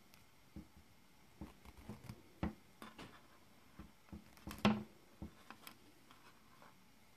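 Seed-bead beadwork being handled: beads clicking and rustling against each other in scattered small taps, loudest a little past the middle, as a beaded triangle is pulled free and set down on a wooden board.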